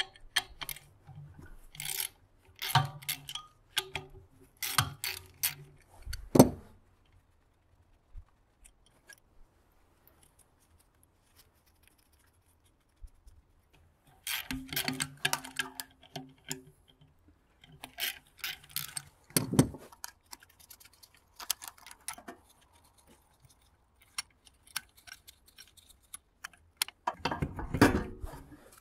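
A cordless power driver running in short bursts as it backs bolts out of a welder transformer's steel frame, mixed with metal clinks. There is a heavy clank about six seconds in and another near twenty seconds.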